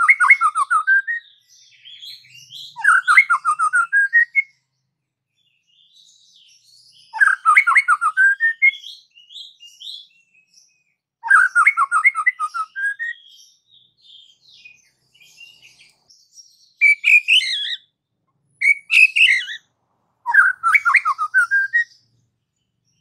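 White-rumped shama (murai batu) singing: about seven short phrases of rapid, repeated notes, each lasting one to two seconds and separated by pauses, with fainter high whistled notes in between.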